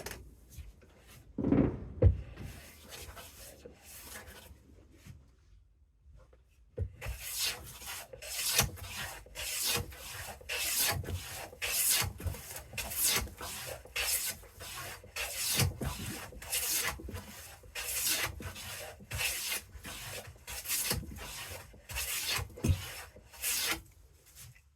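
Restored Bailey No. 4½ smoothing plane shaving wood, taking long ribbon shavings with a smooth cut: quick, even rasping strokes, about two a second, starting about seven seconds in, after a couple of dull thumps near the start.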